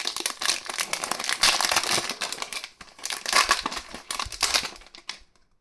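Wrapper of a Weiss Schwarz trading-card booster pack crinkling and tearing as it is opened by hand. The crinkling stops about five seconds in.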